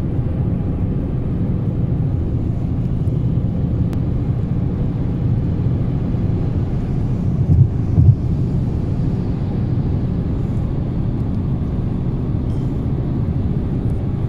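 Car driving, a steady low road rumble, with two brief thumps a little past the middle.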